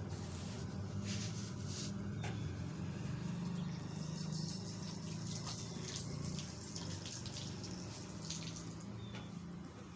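A parrot pecking and scrabbling at a plastic bottle: scattered sharp clicks and scratchy scrapes, busiest about halfway through, over a steady low hum.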